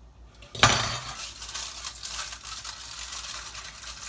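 Kitchenware being moved: a dish lands with one sharp clank about half a second in, ringing briefly, followed by quieter clinking and clatter on the counter.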